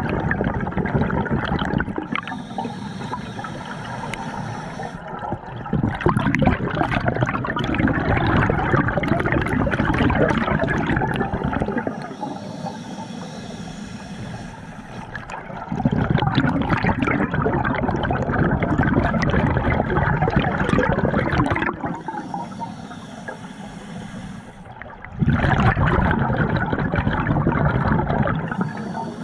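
Scuba diver's breathing heard underwater: four long rushes of exhaled bubbles from the regulator, with quieter stretches of thin inhalation hiss between them.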